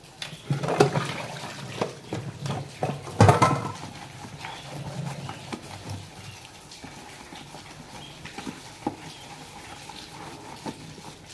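Dishes and plastic containers knocking against each other and the stainless steel sink, with the loudest clank about three seconds in, then a soapy sponge scrubbing a plastic bowl by hand with a steady rubbing sound.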